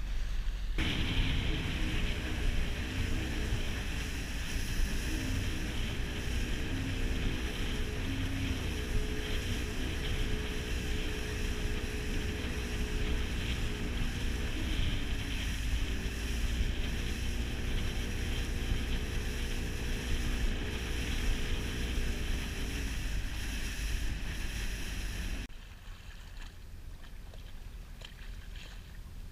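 Small motorboat underway: its engine running at a steady cruising hum with a low rumble, mixed with wind buffeting the microphone and water rushing along the hull. Near the end the engine hum and rumble drop away, leaving softer wind and water noise.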